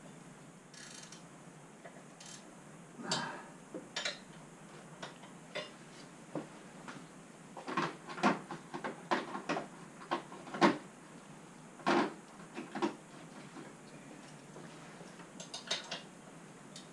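Hard metal parts and tools being handled, with irregular clinks, clicks and knocks. The clicks come thickest and loudest between about eight and thirteen seconds in.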